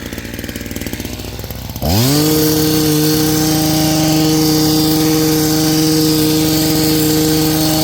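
Hedge trimmer speeding up about two seconds in, then running at a steady high speed while it cuts the shrub tops level. Before that, a lower, rougher mechanical running.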